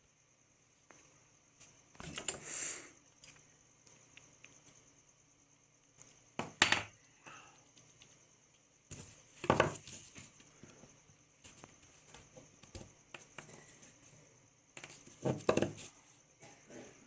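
Metal clinking and scraping as an old rusty bearing and metal tools are handled, in four short bursts a few seconds apart.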